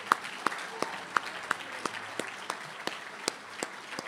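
Audience applauding, with sharp single claps close to the podium microphone standing out at about three a second.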